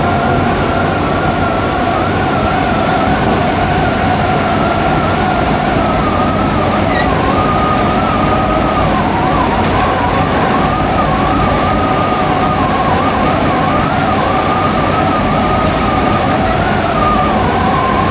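A motor vehicle running on the road: steady, loud engine and road noise with a whine that wanders up and down in pitch.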